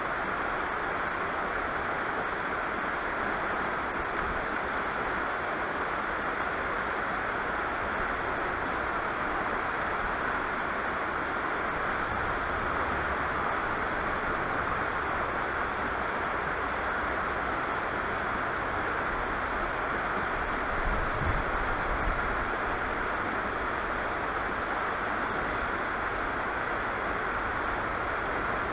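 River water rushing steadily over a shallow stony riffle, a constant hiss of white water. Low wind rumble on the microphone swells briefly about halfway and again about two-thirds in.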